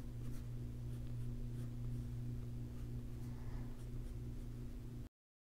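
Pencil scratching lightly on sketchbook paper in short strokes, over a steady low hum; the sound cuts off suddenly near the end.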